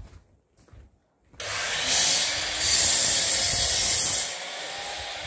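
A power tool working wood, a steady harsh noise that starts abruptly about a second and a half in, is loudest through the middle, then eases to a lower level near the end.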